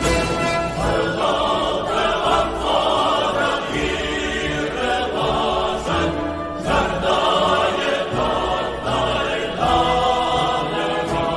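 Choral music: a choir singing long, held phrases over a low instrumental bass.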